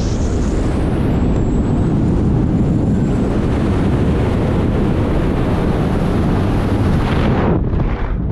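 Freefall airflow rushing over the camera microphone during a BASE jump, a loud steady roar that cuts off suddenly near the end, typical of the parachute opening.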